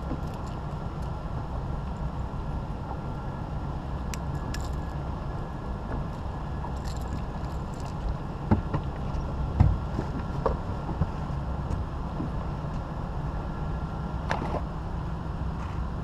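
A boat's motor running steadily with a low rumble. Several knocks from objects in the boat come about halfway through.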